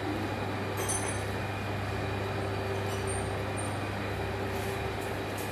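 Ice-block crusher running, its electric motor driving the stainless crushing drum through a V-belt: a steady hum with a steady higher tone above it.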